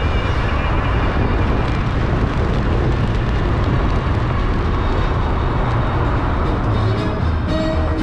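Wind buffeting a microphone held outside a moving car, mixed with road and tyre noise at driving speed.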